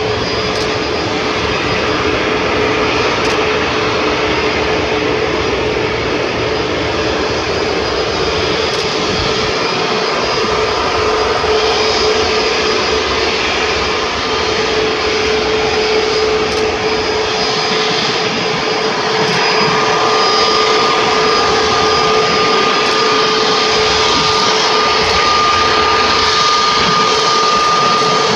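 Airbus A321neo jet airliner taxiing on its twin turbofan engines: a steady engine whine over rushing noise, with a low hum underneath. About two-thirds of the way in, a higher tone joins and the sound grows a little louder as the plane turns to face head-on.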